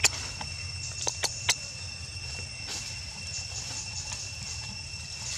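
Steady high-pitched insect drone with a few sharp clicks in the first second and a half.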